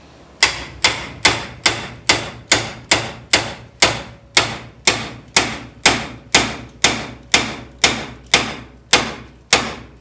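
Steady hammer blows on the steel front suspension of a 1970 Dodge Challenger, about two a second, each with a short metallic ring, knocking the upper ball joint loose from the steering knuckle.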